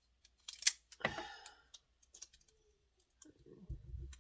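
Handling of acid-free tape, paper and mat board: a few sharp clicks and a knock about a second in, then rubbing over the last second.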